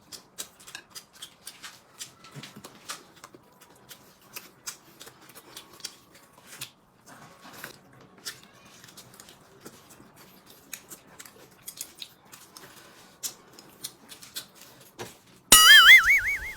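Eating at a table: many small sharp clicks and taps of utensils, dishes and chewing. About a second before the end, a loud warbling comedy sound effect with wobbling pitch cuts in.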